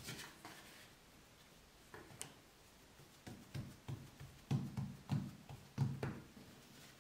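Fingertips pressing and patting a ball of yeast dough flat on a floured wooden board: a run of soft, dull thumps, a few a second, starting about three seconds in. A brief light rustle and knock at the start.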